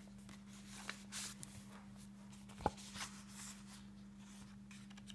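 Faint rustling and handling of the paper pages and flaps of a handmade junk journal, with one sharp click about two and a half seconds in. A steady low hum runs underneath.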